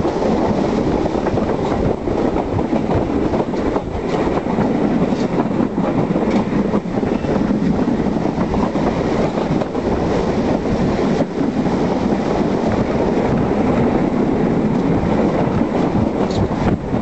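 A steam-hauled passenger train rolling along, heard from an open carriage window: a steady, loud rumble of wheels on the rails mixed with rushing air, with a few faint irregular knocks.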